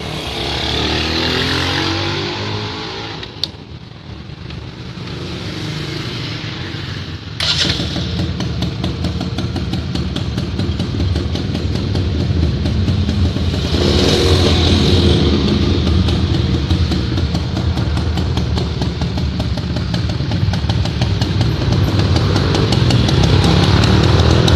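Suzuki RC100 Bravo's single-cylinder two-stroke engine running, revved up twice: near the start and about halfway through. Its level jumps suddenly about a third of the way in, after which rapid, even firing pulses are heard.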